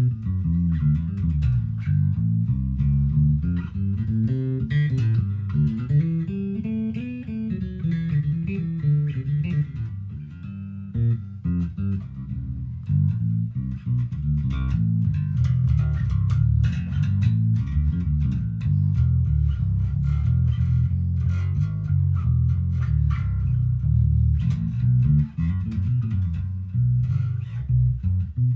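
Six-string Squier electric bass played fingerstyle: an unbroken run of low plucked notes, with sharp string attacks standing out more in the second half.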